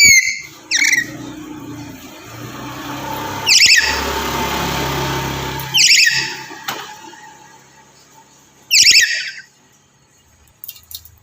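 Black-capped lory screeching loudly, about five harsh calls each made of quick rising notes. This is a male in breeding condition calling for a female. A low steady rumble runs underneath for a couple of seconds in the middle.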